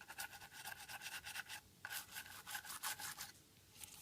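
Toothbrush bristles scrubbing iPhone 5 parts wet with isopropyl alcohol: quick, faint brushing strokes in two runs with a short break between, stopping a little over three seconds in.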